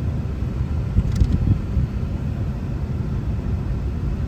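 Steady low rumble of a 2013 Volkswagen Tiguan running with its air conditioning on and blowing cold, with a few faint clicks about a second in.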